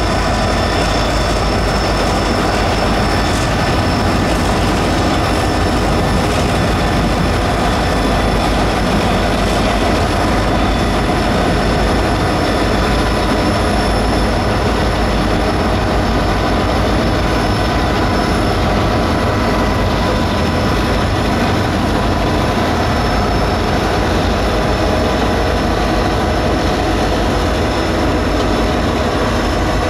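Heritage passenger train hauled by diesel-electric locomotives moving past, engines running with a steady rumble and whine, then carriages rolling by. The sound stays loud and even throughout.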